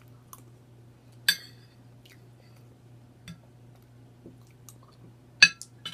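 Eating sounds: a utensil clinks sharply against a dish twice, about a second in and again near the end, with soft mouth clicks and ticks between. A steady low hum runs underneath.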